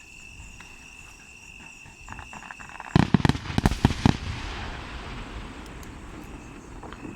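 Aerial fireworks going off: a quick run of sharp bangs about three seconds in, followed by a fading crackle for several seconds. A steady high insect trill runs underneath before the bangs.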